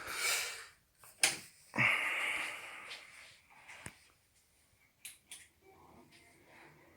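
Handling noises: a sharp click about a second in, then a rustling scrape lasting about a second, followed by a few lighter clicks about five seconds in.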